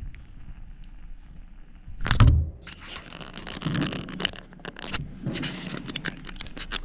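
Handling noise close to the microphone: a thump about two seconds in, then rustling, scraping and a run of small clicks, like keys jangling, as a hand reaches for the camera.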